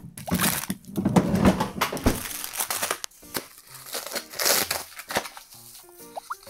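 Plastic food packaging rustling and crinkling as it is handled, loudest in the first two seconds. Background music with short plucked-sounding notes comes in after about two seconds.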